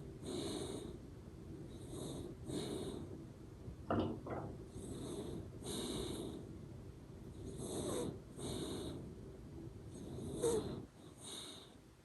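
Sleeping Shiba Inu snoring through its nose with a whistling "poo-poo" sound, in paired breaths every two to three seconds, with a sharper squeak about four seconds in.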